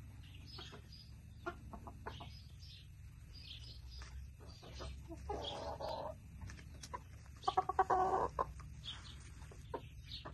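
Chickens clucking during a dust bath, with two louder calls, one about five seconds in and a rapid pulsing one about seven and a half seconds in, over repeated short high chirps and a few sharp scratching clicks.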